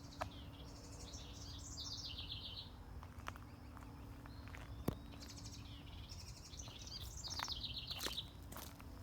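A songbird singing two phrases about five seconds apart, each a quick run of high chirping notes that drops in pitch toward its end.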